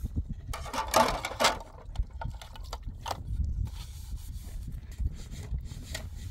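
Plates being washed by hand over a plastic tub: a loud scrubbing, rushing noise about a second in and a few short clinks later, over a steady low rumble.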